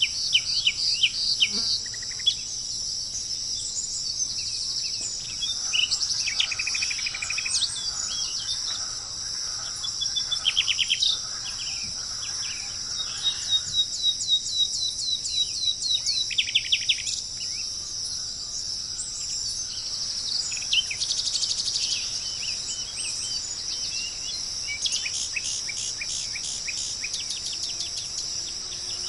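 Wild birds calling in bursts of quick, falling chirps and short trills over a steady, high-pitched chorus of insects.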